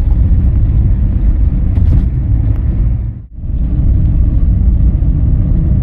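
Steady low rumble of a moving car's road and wind noise, heard from inside the car, with a brief dropout about three seconds in.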